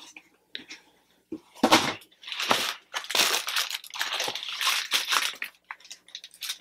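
Shipping packaging being torn open and crinkled by hand: a run of irregular crackling rustles and tears as a boxed vinyl figure is unwrapped.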